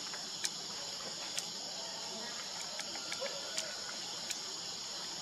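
Steady high-pitched insect chorus of crickets or cicadas, with a few short sharp clicks scattered through it.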